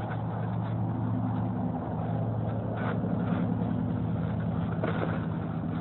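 A motor engine running steadily with a low hum, its pitch shifting slightly about two seconds in.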